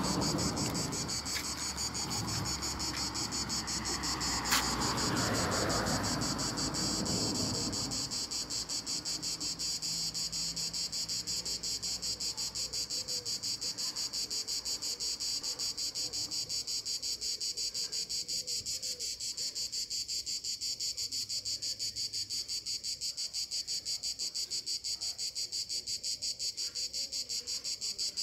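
Crickets chirping in a steady, fast pulsing trill, with a low rumble underneath that fades out about eight seconds in.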